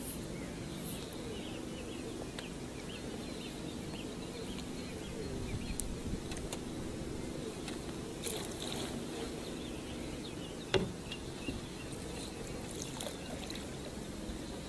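Gentle water lapping against the hull of a small drifting boat, with a few light knocks and one sharper click about 11 seconds in.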